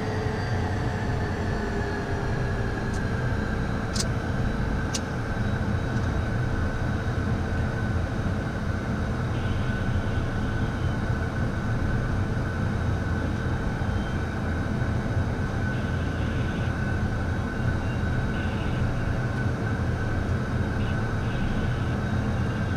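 Beechcraft Premier 1A's twin turbofan jet engines idling during a slow taxi, heard from inside the cockpit: a steady low rumble under a high whine that settles slightly lower in the first second or two. Two sharp clicks about four and five seconds in.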